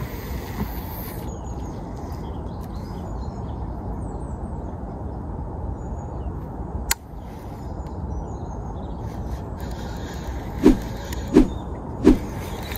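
A crow cawing three times in quick succession near the end, over a steady low background rumble. Faint high bird chirps come in the middle, and a single sharp click sounds about seven seconds in.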